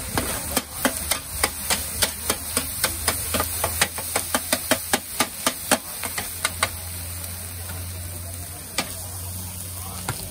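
Metal spatula clanging and scraping against a large flat iron wok while fried radish cake is chopped and stir-fried: a rapid run of about three to four clangs a second that stops about two-thirds of the way through, with a lone clang later. A steady low hum runs underneath.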